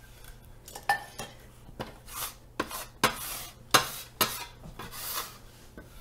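Metal bench scraper scraping flour and dough scraps across a stone countertop: about eight short, sharp scrapes, some in quick succession.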